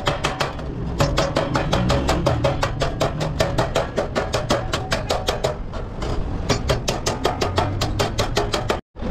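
A hand hammer beats a galvanized steel sheet disc, the end piece of a water tank, in rapid even blows, about six a second. Each blow leaves a short metallic ring.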